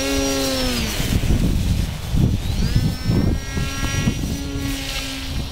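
RC foam model plane's motor and propeller whining as it flies by low; the pitch drops in the first second, climbs again about halfway through and then holds steady. Gusty wind buffets the microphone throughout.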